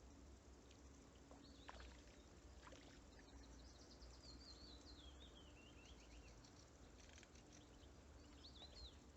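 Near silence: faint outdoor ambience with a distant small bird singing in a few short warbling phrases, the longest falling in pitch over a couple of seconds midway through.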